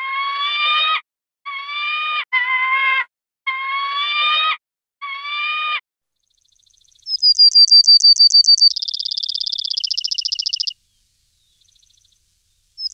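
Common kestrel calling: five drawn-out, slightly rising calls, each about a second long. From about seven seconds, a house sparrow gives a high, fast trill. It begins as separate sharp notes, then speeds up and drops in pitch before stopping short.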